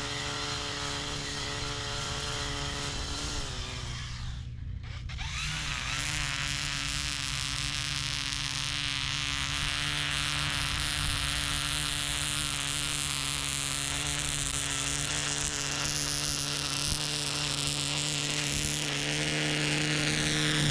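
Toro Revolution Grandstand battery-powered stand-on mower running: a steady electric whine from its motors over a steady hiss. The whine dips in pitch briefly about four seconds in and then comes back up.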